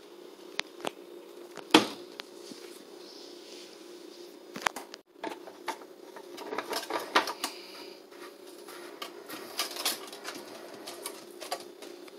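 Plastic clicks, taps and knocks of hands working a reverse-osmosis membrane housing and its plastic tubing as the tube is fitted back, with a sharp knock about two seconds in and busier clusters of clicks in the middle and near the end, over a steady low hum.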